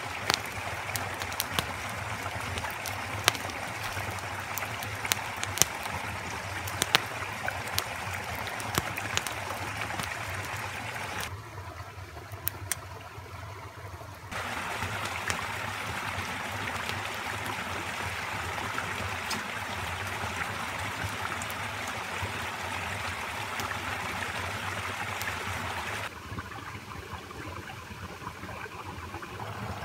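A small forest creek running steadily, with scattered sharp snaps and clicks through the first ten seconds. There is a quieter stretch of a few seconds near the middle.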